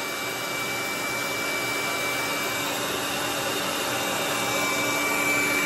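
Handheld hair dryer running steadily on its warm setting: a constant rush of air with a steady motor hum, held close to the head to dry the wig's lace at the hairline.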